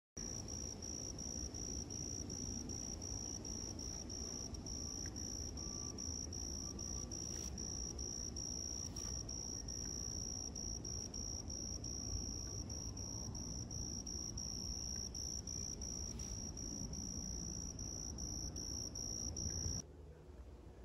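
Cricket chirping steadily in a high-pitched, rapid, even pulsing, over a low background rumble. It cuts off suddenly near the end.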